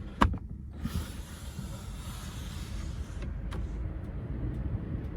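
Hyundai Starex camper van's door opened: a sharp latch click, then a hiss of air and door movement for about two seconds and another click, over a steady low rumble of wind.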